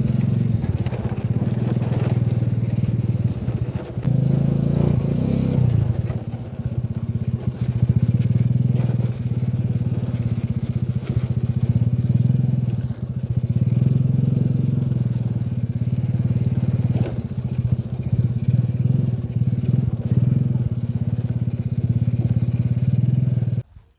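Small motor scooter's engine running steadily while riding a rough dirt track, with knocks and crackling from the bumpy ground and brush brushing past. The sound cuts off suddenly near the end.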